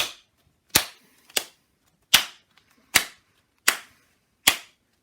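A series of sharp slaps on an inflated balloon, imitating penguin feet slapping on the floor as they walk. There are seven evenly spaced smacks, about one every three-quarters of a second, the third one softer.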